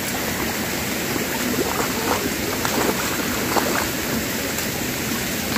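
Steady rush of running water, a stream flowing across a road, with a few faint splashes from hands working laundry in a bucket.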